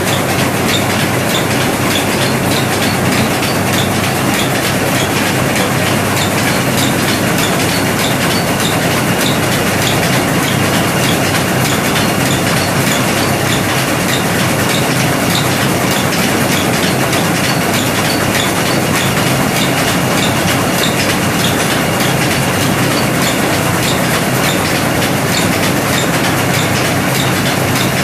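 Three-stone rice milling machine running: a loud, steady mechanical rattle with a regular clicking over it.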